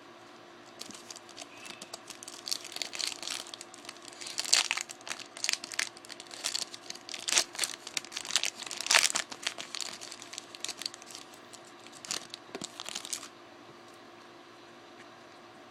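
2013 Topps Chrome trading-card packaging being torn open and handled: irregular crinkling and tearing of the wrapper that stops about thirteen seconds in.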